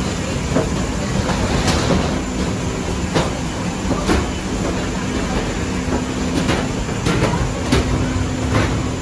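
Steady loud mechanical rumble of airport apron machinery with a faint steady hum, and irregular clanks of footsteps and a wheeled suitcase bumping down metal airstairs.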